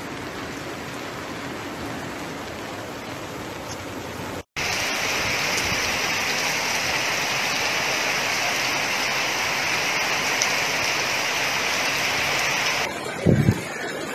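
Steady rushing of flowing floodwater, a continuous hiss that cuts abruptly about four and a half seconds in and comes back louder and brighter. Near the end it drops away, and a couple of short low thumps are the loudest moment.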